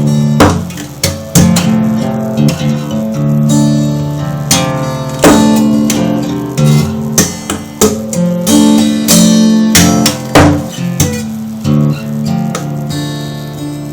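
Guitar playing: strummed chords and picked notes with sharp attacks that ring on, struck irregularly throughout.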